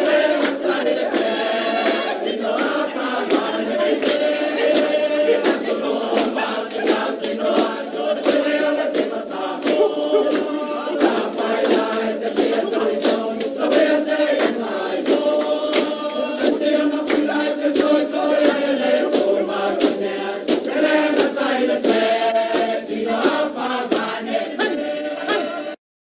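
Samoan group singing: a choir of voices chanting a song together over quick, sharp rhythmic beats. It cuts off suddenly near the end.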